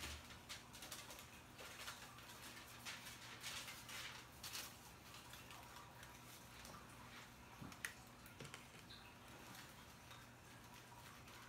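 Faint, short rustling strokes of hair being worked with a brush, clustered in the first five seconds and sparser after, over a faint low hum.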